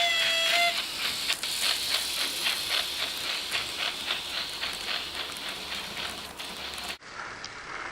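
ESU sound decoder in a Fleischmann model P8 (BR 38) steam locomotive, playing through its small speaker. A steam whistle ends in the first moment, then steady exhaust chuffs follow at about three beats a second. Near the end the sound cuts suddenly to quieter clicking and rattling.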